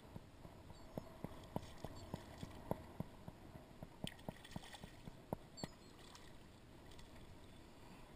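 A string of light, sharp knocks, irregular at about two or three a second, over a low steady wash of wind and water; the knocks stop a little under six seconds in.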